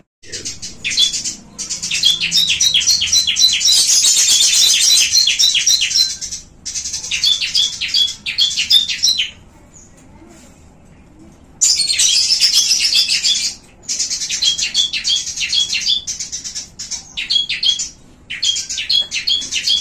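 Small caged songbirds chirping in long, fast runs of repeated high notes, several phrases in a row, with a pause of about two seconds midway.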